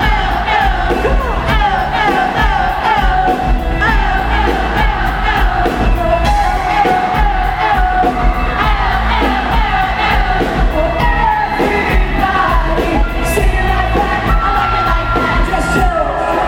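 Live pop band playing, with singing over a steady heavy bass and crowd noise mixed in.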